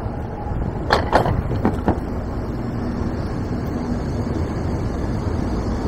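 Steady city-street noise of traffic with wind rumbling on the microphone, broken by a quick run of four sharp clicks or knocks about a second in.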